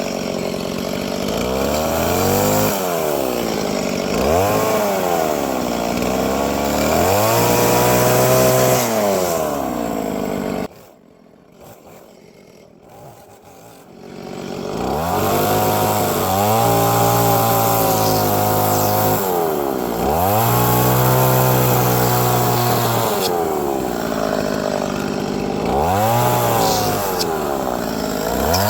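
Gas chainsaw cutting wood, its engine revving up and falling back again and again as the throttle is squeezed and released for short carving cuts. About eleven seconds in the sound drops away abruptly for about three seconds, then the revving resumes.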